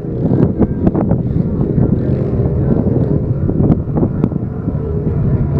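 Engines of off-road side-by-sides working up a rocky climb, a continuous rumble with many sharp knocks through it, and wind buffeting the microphone.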